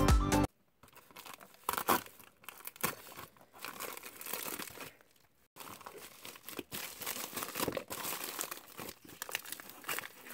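Intro music cuts off suddenly about half a second in. After that comes the irregular crinkling and rustling of a grey plastic poly mailer bag as it is torn open and handled, with a short pause about halfway through.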